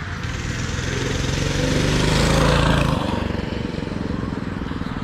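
Minibike's Tillotson 212cc single-cylinder engine running at speed, growing louder as the bike comes close, then dropping off suddenly about three seconds in.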